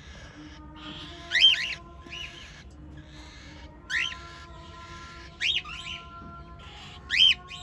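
Cockatiels calling: four loud whistled chirps that rise and fall in pitch, spaced about one and a half to two seconds apart, with softer chattering between them.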